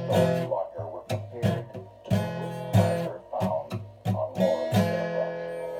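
Guitar music: a run of strummed chords, each struck sharply and left to ring, at an uneven pace of roughly one or two strokes a second.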